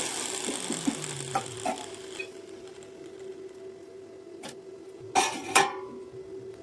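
Metal pieces being handled: a few light clicks and knocks, then two louder ringing clanks about five seconds in, over a faint steady hum.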